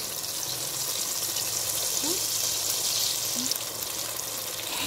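Masala-coated fish pieces deep-frying in hot oil in an aluminium pot: a steady hissing sizzle that grows louder about two seconds in.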